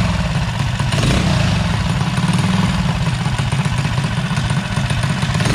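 Predator 212 single-cylinder go-kart engine on a drift trike, running steadily. Its Mikuni VM22 carburettor has just been fitted with a larger 160 main jet to cure a bog when the throttle is opened.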